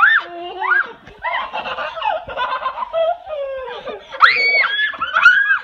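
Young children giggling and squealing, with babbling, and loud high-pitched squeals from about four seconds in.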